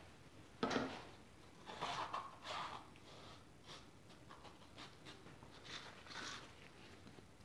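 Quiet workbench handling: a sharp knock about a second in, then a few soft scuffs and dabs as a foam sponge is dipped into a small metal cup of leather colourant.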